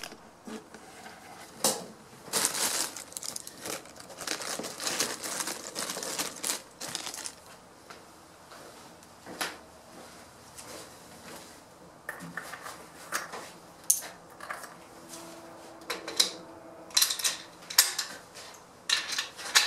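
Handling noise: crinkling and rustling from about two to seven seconds in, then scattered sharp clicks and clinks that come thickest near the end.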